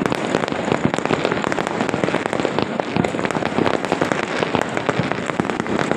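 Many fireworks and firecrackers going off across a town at once: a dense, unbroken crackle of pops and bangs.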